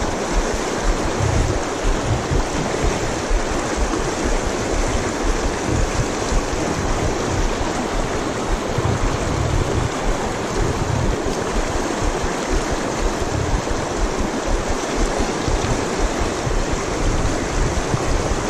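Shallow mountain river rushing steadily over rocks in a riffle, close by.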